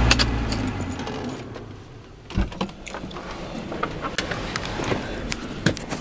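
A low steady hum dies away in the first second, then keys jangle with scattered light clicks and knocks of handling.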